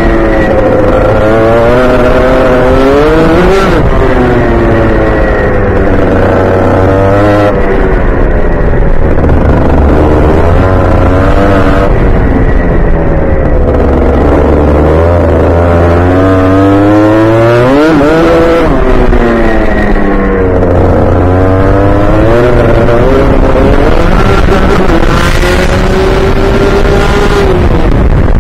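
Rotax Junior Max 125 cc two-stroke kart engine at racing speed, heard from the kart itself: its pitch climbs steadily along the straights and drops sharply under braking for the corners, several times over.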